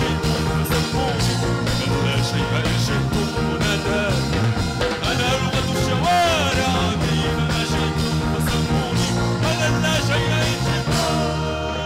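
Live band music: a man singing lead over electric guitars, bass and drums.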